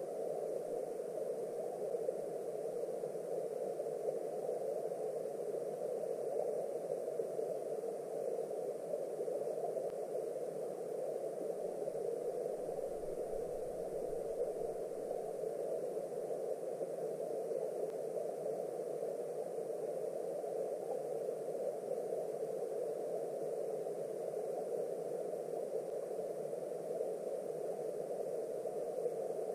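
Steady, muffled rush of flowing river water recorded underwater through a GoPro's waterproof housing.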